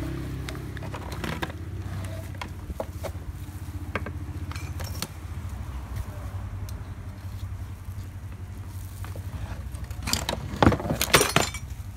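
Two flat-blade screwdrivers prying a rotary hammer drill's rotor out of its housing at the top bearing: small metal scrapes and clicks, then a run of loud sharp metal clicks near the end as the bearing works loose. A steady low hum runs underneath.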